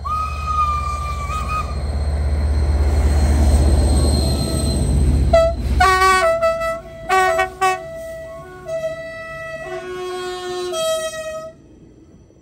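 A CC 72000-class diesel locomotive sounds one horn blast and passes at close range with a heavy engine rumble. As the 140 C steam locomotive behind it comes alongside, a series of short, stepped whistle blasts follows, stopping about a second before the end.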